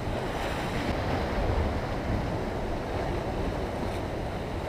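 Sea surf washing and breaking against the rocks below, a steady rushing noise with low rumbling wind buffeting the microphone.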